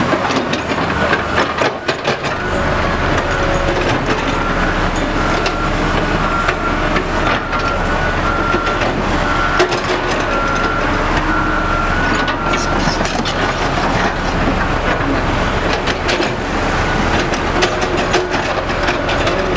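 Heavy diesel earthmoving machinery running steadily, with constant clanking and knocking and a repeated high beep through the middle.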